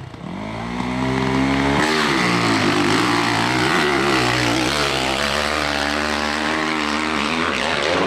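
Off-road motorcycle engine revving hard on a steep climb, its pitch rising over the first two seconds, dipping briefly, then wavering up and down with the throttle.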